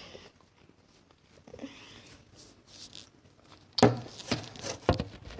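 Faint room sound, then from about four seconds in a quick run of loud, close rustles and clicks.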